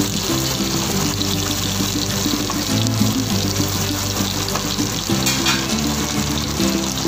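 Background music with steady held low notes, over the even hiss and sizzle of a whole pomfret frying in oil in a pan.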